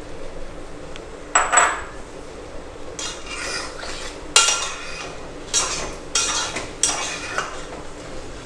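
A metal spatula scraping and clinking against a stainless steel pot, stirring sugar into soaked apricots in syrup. There are about seven irregular strokes.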